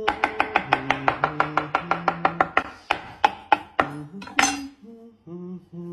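Chef's knife chopping dry pet kibble on a wooden cutting board: quick knocks, about five a second, that stop a little past halfway, followed by one short scrape. A voice hums a tune in long held notes underneath.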